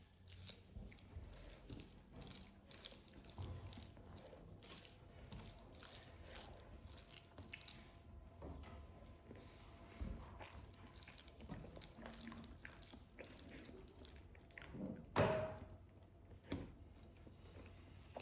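Close-miked eating sounds: wet chewing and lip smacks with a run of small, sharp mouth clicks, and one louder sharp sound about fifteen seconds in.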